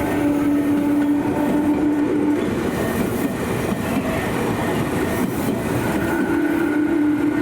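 Electric commuter train of the Tobu Tojo Line running past on the track, wheels clattering over the rails, with a steady low whine that fades about two seconds in and comes back near the end.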